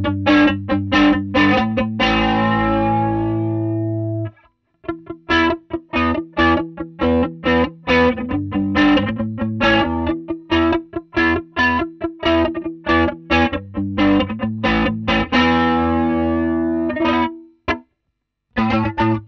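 Electric guitar played through a TC Electronic SCF Gold chorus pedal: quick picked notes, with a held chord ringing out about two seconds in and another near the end. Each held chord is followed by a short break.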